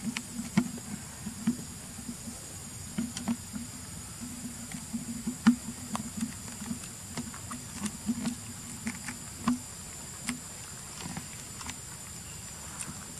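A baby pigtail macaque chewing food, heard as irregular soft clicks and smacks, a few a second, that die away near the end.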